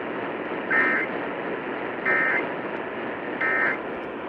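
Three short bursts of Emergency Alert System SAME digital data, each about a third of a second long and about 1.3 seconds apart: the end-of-message code that closes a flash flood warning. They sound over a radio's steady hiss.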